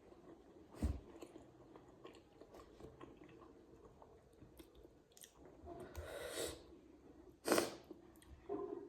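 A person chewing and biting steamed vegetable momos close to the microphone. Small wet clicks run throughout, with a few louder sharp noises, the loudest about a second before the end.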